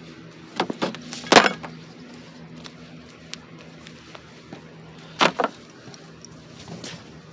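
A few sharp knocks and clanks, the loudest about a second and a half in and a quick pair about five seconds in, over a steady low hum.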